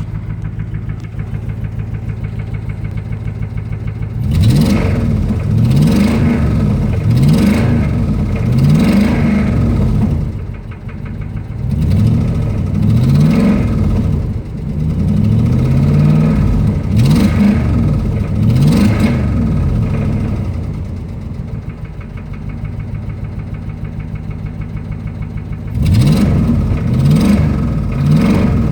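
2005 Dodge Ram's 5.7-litre Hemi V8 idling, then revved up and down again and again for about sixteen seconds, dropping back to idle and revved again near the end. The owner takes the knock in the engine for rod knock.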